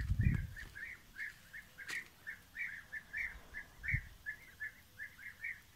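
A bird chirping over and over in short, even calls, about three or four a second, with a low bump at the very start.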